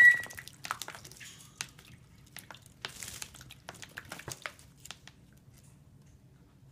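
A young green-cheeked conure splashing as it bathes in a shallow dish of water, with irregular wet flicks and splashes that thin out after about five seconds. One short high chirp rises and then holds at the very start.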